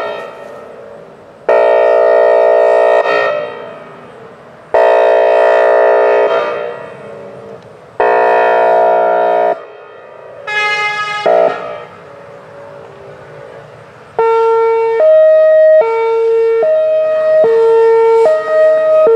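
Whelen Vortex R4 outdoor warning siren sounding its air horn signal: three steady blasts of about a second and a half each, every one trailing off in echoes. After a short pause it switches to its hi-lo signal, two tones alternating about every three-quarters of a second.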